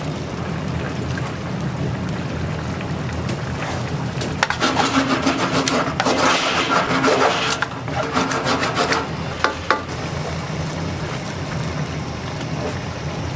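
Spicy minced meat sizzling in oil in a frying pan while a wooden spatula stirs and scrapes it against the pan. The scraping is louder for a few seconds in the middle.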